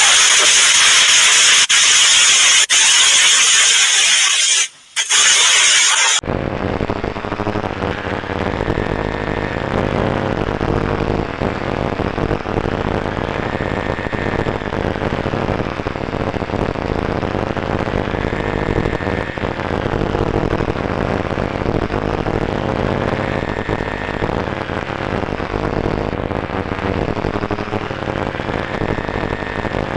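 Fake emergency-alert alarm soundtrack: loud static hiss that cuts out briefly about five seconds in, then changes about six seconds in to a low, dense drone with a slow siren-like tone rising and falling about every four and a half seconds.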